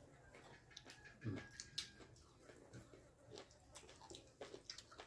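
Near silence: quiet room tone with scattered faint clicks and a soft thump a little over a second in.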